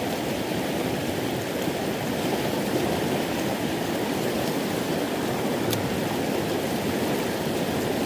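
Creek water pouring over a low spillway, a steady whitewater rush.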